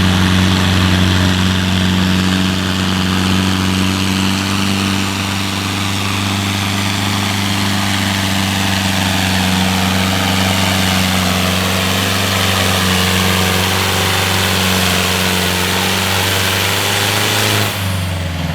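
Farm tractor's diesel engine running hard at a steady, high pitch while pulling the sled. Near the end it cuts back suddenly and the pitch starts to fall as the throttle comes off.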